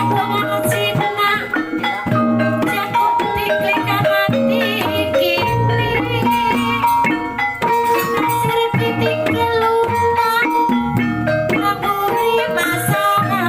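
Javanese gamelan-style music accompanying a kuda lumping dance: tuned metallic percussion playing quick melodic lines over drums and a repeating low part, at a steady loud level.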